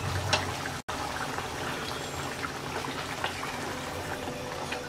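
Fish curry boiling in a pan: a steady bubbling with small pops and spits. A wooden spatula stirs through the thick gravy near the end.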